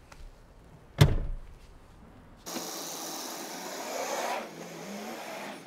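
A single solid thump about a second in, the rear seat back of a Toyota LandCruiser 79 series dual cab dropping into place. From about halfway through, a steady outdoor hiss with a vehicle engine faintly rising in pitch.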